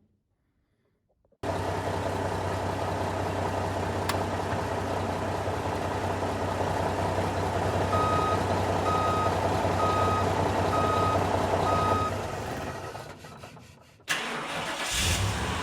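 A vehicle engine starts up after a moment of silence and runs steadily at idle. Midway it is joined by five short beeps about a second apart, like a reversing alarm. It fades out, and another engine sound cuts in near the end.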